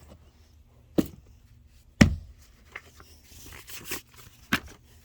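Fidget toys being handled and put down: three sharp knocks, the loudest about two seconds in, with a short crinkling rustle just before the last one.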